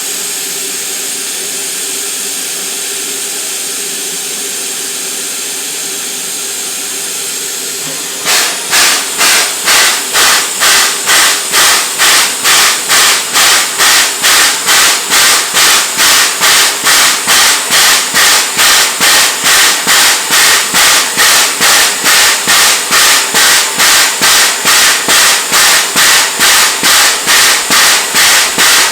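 Narrow-gauge steam locomotive letting off steam with a steady hiss, then starting to chuff about 8 seconds in: loud, even exhaust beats at about two a second.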